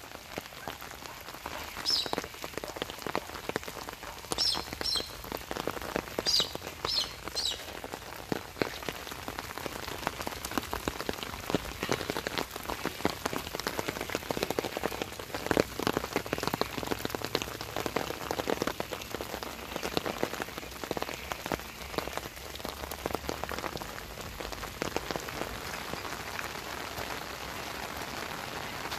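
Steady rain falling on leaves and a wet dirt track, a dense patter of drops. A few short high chirps sound in the first eight seconds.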